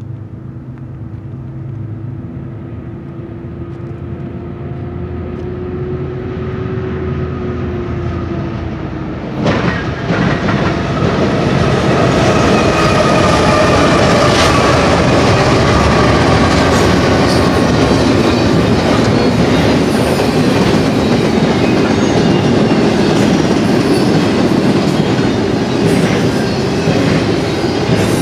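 Freight train led by five BNSF GE diesel-electric locomotives (an ET44C4, ES44C4s, an ES44DC and a Dash-9). The locomotives approach with a steady hum that grows louder, then pass close by with a sudden jump in loudness about ten seconds in. After that comes the steady rumble of double-stack container cars rolling by on steel wheels.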